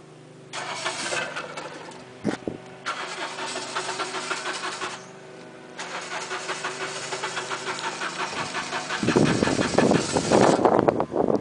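John Deere X724 garden tractor engine running, with a fast, rattly ticking that drops out briefly twice. About nine seconds in it gets much louder and rougher.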